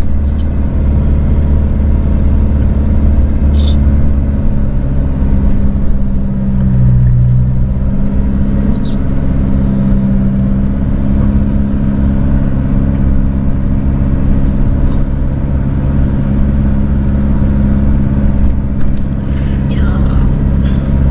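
Car engine and road noise heard from inside a moving car: a steady low hum whose engine note dips briefly about seven seconds in, then settles back.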